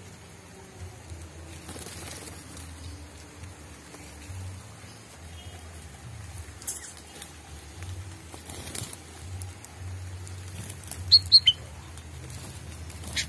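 Sooty-headed bulbul fluttering its wings and rustling among twigs and leaves. About 11 seconds in it gives three sharp, short chirps in quick succession, the loudest sound, over a light patter of rain.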